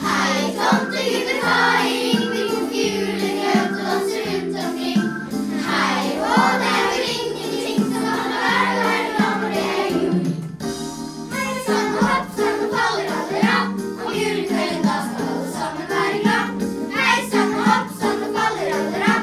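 A group of children singing a Christmas song together over instrumental accompaniment, with a short break in the singing about ten seconds in.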